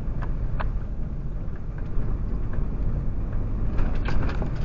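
Low steady rumble of a lorry's diesel engine and tyres heard from inside the cab while driving slowly, with a few faint clicks.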